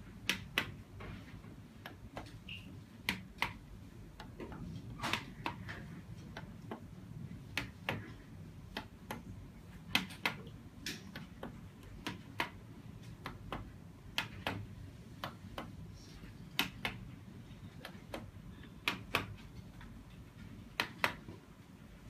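Sharp clicks at irregular intervals, mostly in quick pairs every two seconds or so, over a low steady hum.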